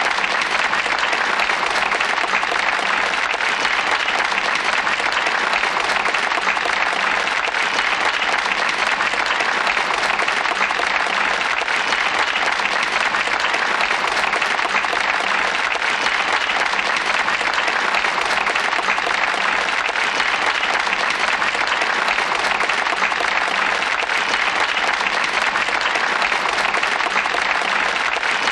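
A crowd applauding, steady dense clapping that keeps an even level throughout.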